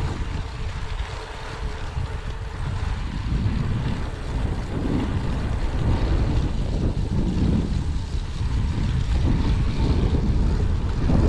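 Wind buffeting the microphone of a camera riding along on a moving bicycle: a loud, uneven rumble, with road noise from the ride.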